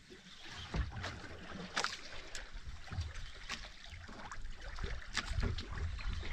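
Sea water lapping and splashing against a fishing kayak's hull, with sharp slaps every second or two over a low, uneven rumble.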